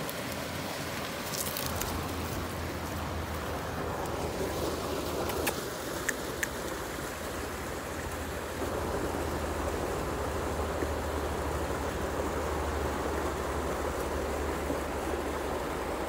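Steady rushing of a river, with a few sharp clicks in the first half.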